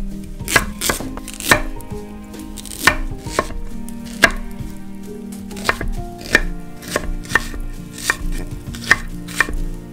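Chef's knife chopping carrots, then onions about halfway through, into large chunks on a wooden cutting board: sharp, irregular knocks of the blade striking the board, about one or two a second.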